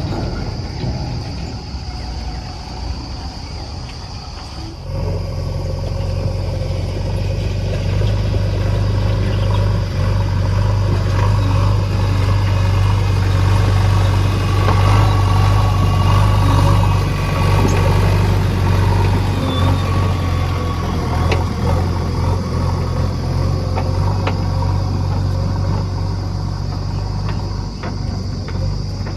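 Heavy diesel vehicle engine running steadily, with a low hum that grows louder about five seconds in and then holds.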